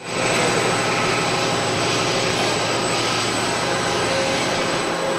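Single-screw snack puffing extruder line running: a steady, dense machine noise with a thin high whine held throughout.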